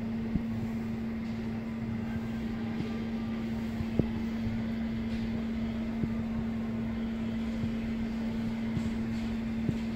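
Steady machine hum with one constant low-pitched tone, and a few faint clicks.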